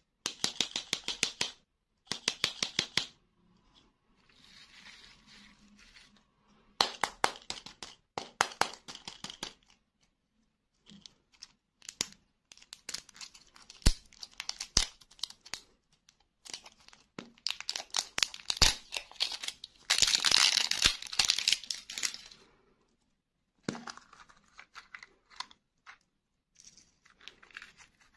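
Plastic wrapper of a toy-surprise lollipop ball crinkling and tearing in bursts as it is peeled off by hand, with a few sharp clicks and a longer rip about two-thirds of the way through.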